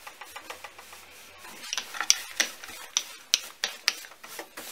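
Wooden rolling pin rolling out dough on a floured wooden board: a run of sharp clicks and knocks, faint at first and louder from about a second and a half in, coming about two to three times a second.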